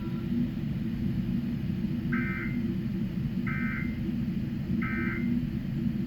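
Emergency Alert System SAME end-of-message data tones: three short bursts of two-pitch warbling digital tone, about 1.3 seconds apart, that close the alert test. A steady low hum runs underneath.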